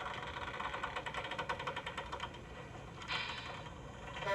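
Radio-controlled model trawler's sound module playing a simulated engine through its small onboard speaker, a fast even chugging, changing to a brighter sound about three seconds in.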